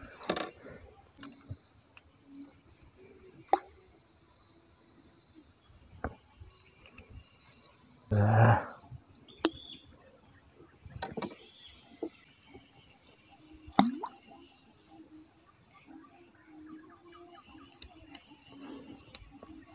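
Steady high-pitched drone of insects, with scattered light knocks and a short, louder thump about eight seconds in as fishing rods are handled and set out in the boat.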